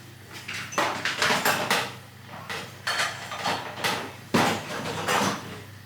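Kitchen handling clatter: a string of knocks and clicks as a Thermomix's lid and bowl are handled and a spatula is picked up, the sharpest knock about four seconds in.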